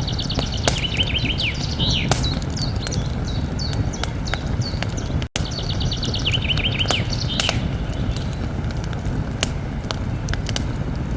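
Campfire crackling and popping over a low rumble of burning wood. A songbird sings a short phrase of quick repeated descending notes twice, about a second in and again just past midway, and the whole sound cuts out for an instant between them.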